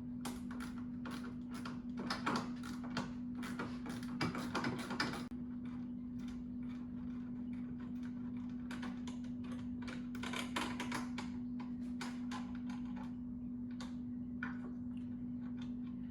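Ratchet socket wrench clicking in quick runs as the nuts are undone, busiest in the first five seconds and again around ten seconds in. A steady low hum runs underneath.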